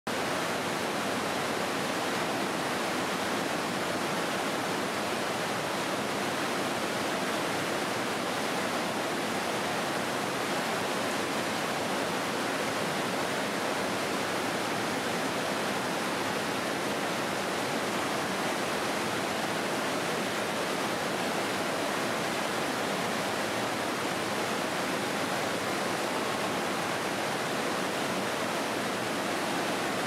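Mountain stream rapids rushing over boulders: a steady, unbroken whitewater rush.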